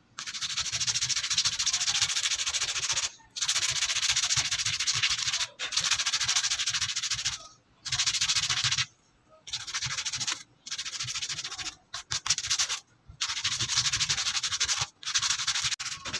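A cotton pad rubbed quickly back and forth over the wooden handle of a meat cleaver, giving a dry, hissy scrubbing. It comes in several stretches of one to three seconds, each stopping abruptly before the next.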